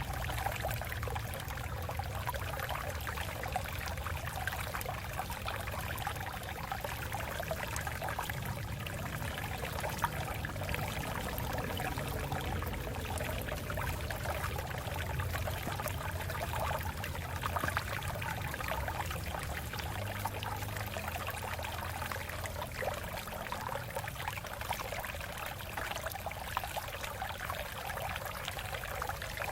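Water flowing over rocks in a stream: a steady trickling, splashing flow with a low undertone.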